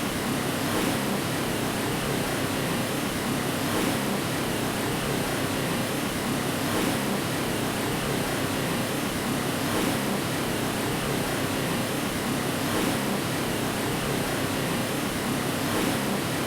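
Steady white noise for lulling a baby to sleep: an even hiss with no changes, fullest in the lower-middle range and thin in the deep bass.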